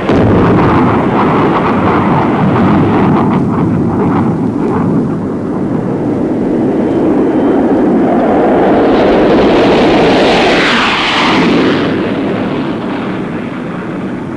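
F-105 Thunderchief's J75 turbojet on takeoff, a loud steady jet roar. It starts abruptly. About ten seconds in, the pitch sweeps up and back down as the aircraft passes, and the roar eases off near the end.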